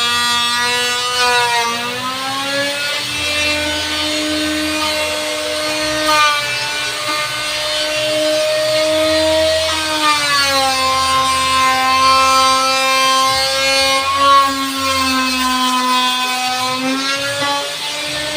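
Electric woodworking power tool running continuously through wood, its motor whine dipping and recovering in pitch under load: it speeds up about two seconds in, slows around the middle, and picks up again near the end.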